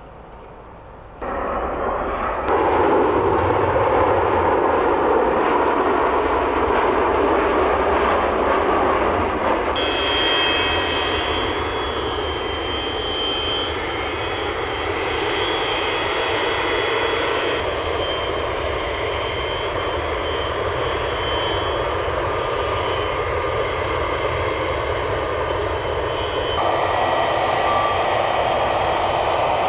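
Boeing 727 jet engines (Pratt & Whitney JT8D turbofans) running loud, a steady jet noise that starts abruptly a second or two in, with a high whine from about ten seconds on. The sound shifts abruptly several times, as between separate shots.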